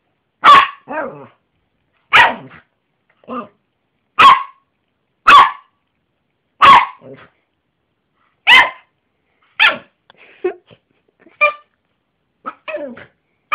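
Yorkshire terrier barking: about seven loud, sharp barks one to two seconds apart, some followed by a weaker second bark, then softer, shorter barks near the end.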